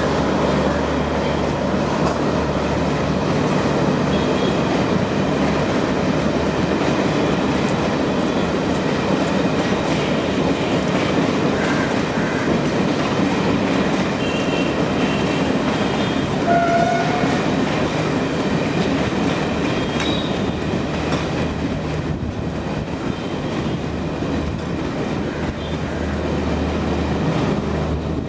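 Indian Railways Yuva Express passenger coaches running past on the tracks, a steady continuous noise of wheels on rails.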